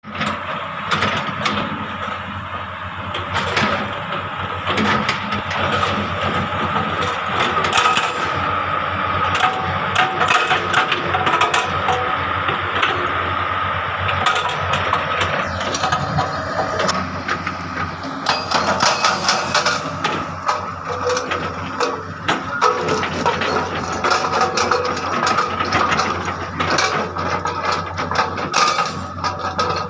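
An excavator's hydraulic rock breaker hammering on rock, breaking up large boulders: a fast, continuous stream of sharp strikes over the steady run of the excavator's engine.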